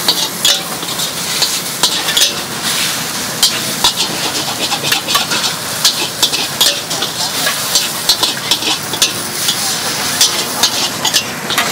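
Metal spatula repeatedly scraping and clacking against a wok as noodles, bean sprouts and greens are stir-fried, over a steady sizzle.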